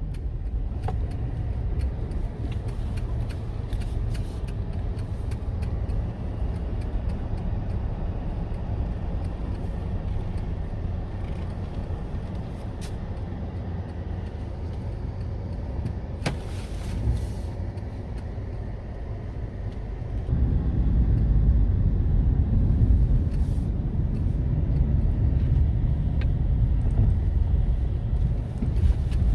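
A car driving: a steady low road-and-engine rumble with a few light clicks and knocks, growing louder about two-thirds of the way through.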